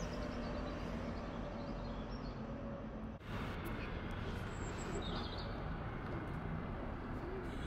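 Outdoor ambience: a steady wash of background noise with a few short high chirps, broken by an abrupt cut about three seconds in where one recording gives way to another.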